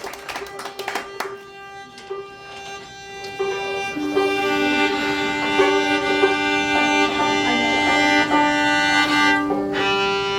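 A fiddle bows long held notes over a sustained drone string. A second, lower string joins as a double stop about four seconds in. Applause fades out in the first second or so.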